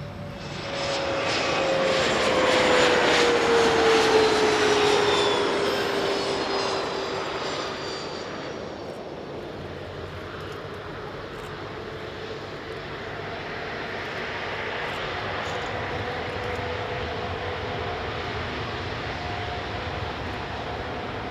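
Boeing 787-8 airliner's Rolls-Royce Trent 1000 jet engines passing close by. The loud roar peaks a few seconds in, and its whine drops in pitch as the aircraft goes past, then settles into a steadier, quieter engine hum.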